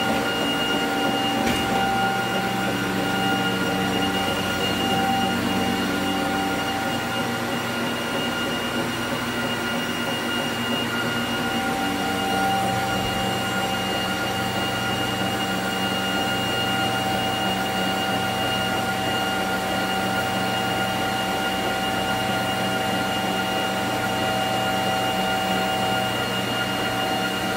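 NordicTrack T 6.5 S treadmill running with no one on it: the drive motor and moving belt make a steady mechanical whine of several held tones. The lower tones shift about seven and twelve seconds in.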